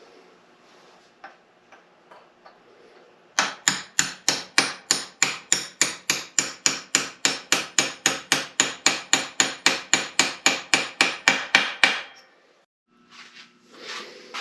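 A hammer tapping steadily on a part of an NP205 transfer case being rebuilt, about five even blows a second for some eight seconds. A few lighter taps follow near the end.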